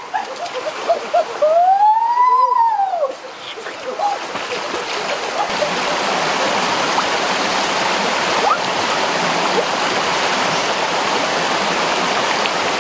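Shallow rocky stream rushing over stones, a steady wash of water that settles in from about four seconds in. Near the start come a few short quick calls and then one long call that rises and falls in pitch.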